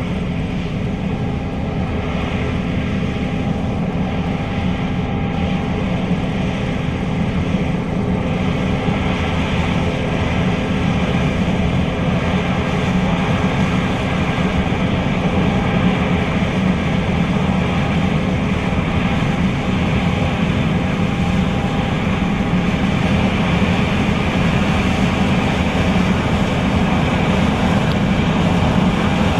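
John Deere S660 combine running steadily under load while harvesting soybeans: an even, continuous machine drone with a low hum.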